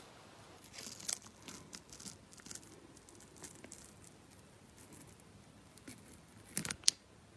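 Dried green tea peel-off mask being peeled from the skin: faint tearing and crackling with scattered small clicks, and a louder cluster of crackles near the end.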